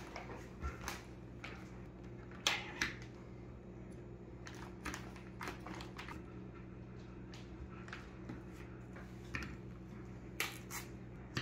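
Scattered light clicks and taps of frozen blueberries being dropped by hand onto silicone lick mats on a stone countertop, with some handling of the plastic berry bag, over a faint steady low hum.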